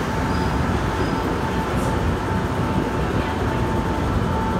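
Rubber-tyred Montreal metro train at the platform, a steady rumble with a thin high whine that comes and goes.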